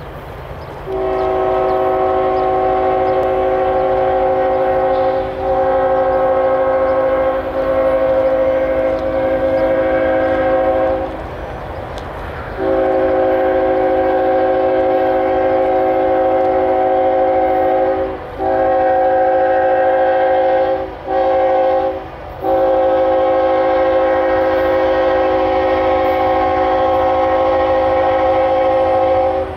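Approaching locomotive's multi-note air horn blowing long blasts, ending in the long, long, short, long pattern of the grade-crossing warning signal, over a steady low rumble.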